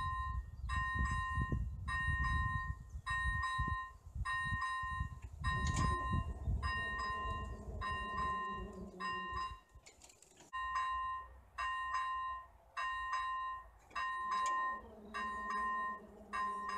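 Railway level-crossing warning bell: an electronic ding repeating a little under twice a second. A low motor hum joins it as the barrier arms swing down.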